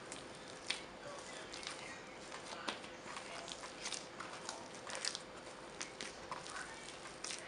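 Soft, sticky bread dough being kneaded by hand on a wooden board, with margarine being worked in, giving irregular wet squelches and light slaps. A faint steady hum runs underneath.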